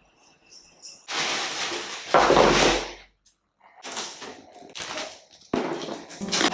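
Plastic storage containers and packaging being handled: rustling and knocking in three bursts, the loudest about two seconds in.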